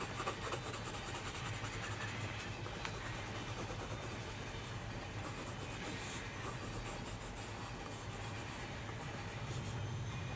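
Coloured pencil scratching on sketchbook paper in quick repeated shading strokes, over a steady low hum.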